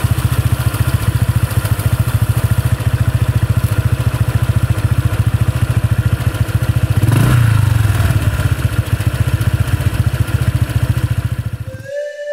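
Motorcycle engine running with a fast, even beat of exhaust pulses, revving up about seven seconds in, then cutting off suddenly near the end.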